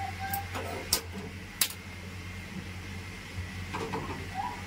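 Hand-held gas lighter clicking twice at a gas stove burner, then an aluminium pot being set on the stove, over a steady low hum.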